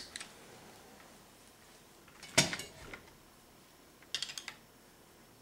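Flat-bladed screwdriver clicking and scraping against the steel rear sight of an AK rifle as the sight leaf is pushed down to be pried off: a sharp metallic click at the start, a louder cluster of clicks about two and a half seconds in, and a short run of clicks about four seconds in.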